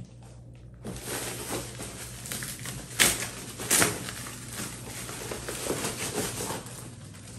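Clear plastic bag rustling and crinkling as it is pulled off a boot and handled, starting about a second in, with two sharper, louder crackles a little past the middle.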